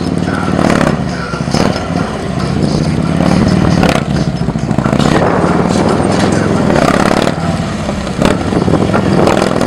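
Large police touring motorcycle engine running at low revs while the bike is ridden slowly through tight turns, its pitch rising and falling a little as the throttle is worked. Brief sharp noises cut in now and then.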